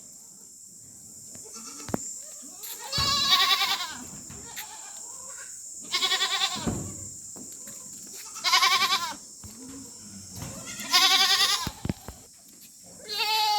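Barbari goats bleating: five loud, quavering calls about a second each, spaced every two to three seconds.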